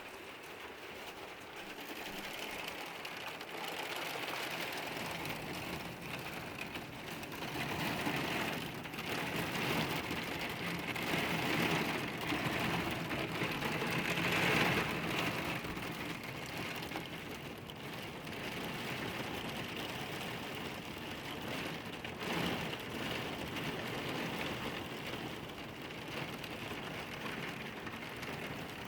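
Heavy rain falling in a dense, steady patter that swells louder in the middle, then eases a little.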